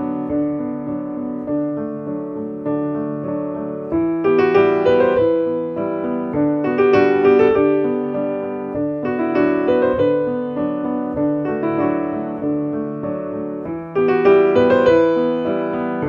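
Background piano music: sustained notes that fade away, played in gentle phrases that grow louder about four seconds in and again near the end.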